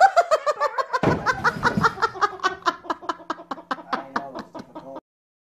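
A person laughing hard in a long run of quick, evenly spaced bursts that slowly weaken, then stop abruptly near the end.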